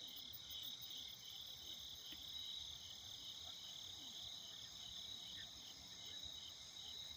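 Night chorus of crickets: a steady, faint, high-pitched trill with an even pulse.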